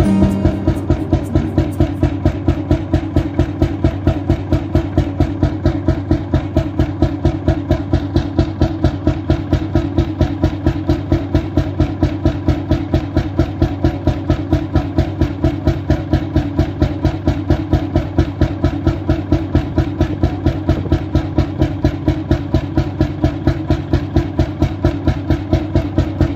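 Krimo late-1930s single-cylinder 21.9-litre hot-bulb oil engine running steadily with an even, rapid exhaust beat.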